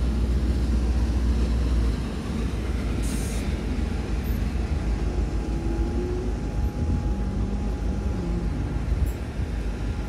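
Busy-street traffic noise: a steady low rumble of passing vehicles, a little heavier for the first two seconds.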